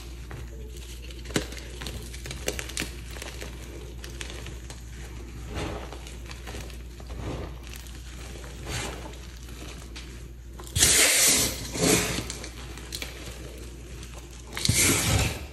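Hands crushing and grinding crumbled pieces of dried, reformed (re-pasted) chalk blocks into powder: soft crisp crackling and crunching with scattered sharp clicks. Two louder, longer rushes of crushing come about eleven seconds in and near the end.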